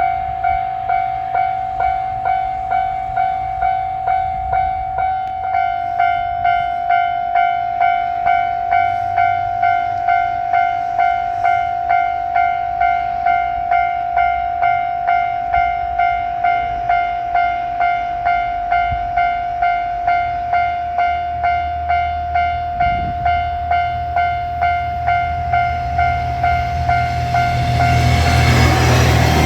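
Japanese level-crossing warning bell ringing in a steady clang, about two strokes a second. Near the end, a JR Shikoku 1500 series diesel railcar's engine rumble and running noise swell up loud as it reaches the crossing.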